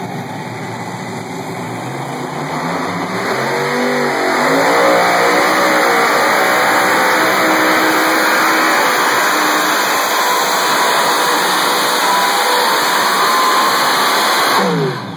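Modified pulling tractor's four Hemi V8 engines at full throttle, dragging the weight sled. They rev up a few seconds in and hold loud and steady, then wind down and cut off sharply near the end as the pull finishes.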